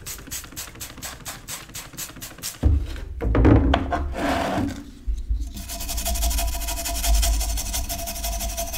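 A trigger spray bottle squirting in quick pulls, then a thump as the wet iron is handled. From about halfway, a small wire brush scrubs steadily over the rusty old iron.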